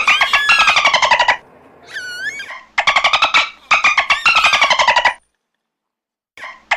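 Dolphin calling: long runs of rapid buzzing click trains whose pitch bands slide slightly downward, with a short swooping whistle about two seconds in. The sound breaks off for about a second, then the buzzing clicks start again near the end.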